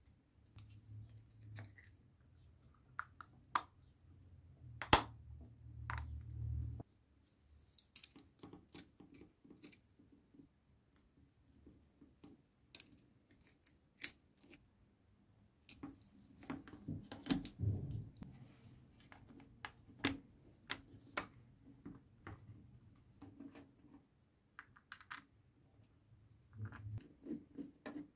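Small plastic and metal parts being handled and fitted together: scattered light clicks and taps as a mains plug and a power-tool handle, with its switch and screws, are reassembled by hand.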